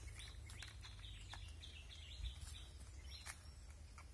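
Faint bird chirping: a rapid series of short, high chirps, about three a second, with a few light clicks.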